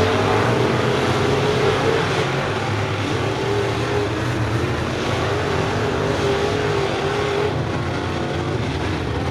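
A field of crate-engine dirt late model race cars running laps together. Their engines give a steady, dense drone whose pitch wavers as the cars go around the oval.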